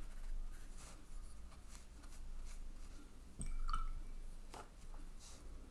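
Faint scratching and rubbing of a watercolour brush working against the paint pans and paper. There is a single light clink with a short ring about three and a half seconds in.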